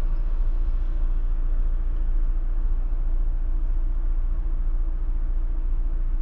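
Fiat Fiorino van's engine idling at a standstill, heard from inside the cabin as a steady low rumble with a faint constant hum, while cross traffic passes in front.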